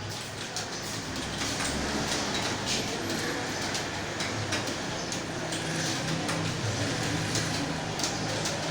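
Computer keyboard being typed on in quick, uneven key clicks, over a steady low hum.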